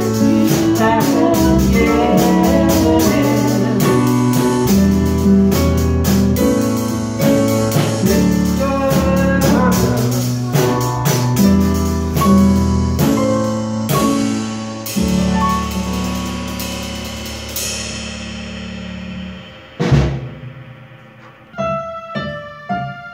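A small band of drum kit and two electronic keyboards playing. The music thins out, a single loud hit comes about twenty seconds in, and near the end a keyboard starts on spaced single notes.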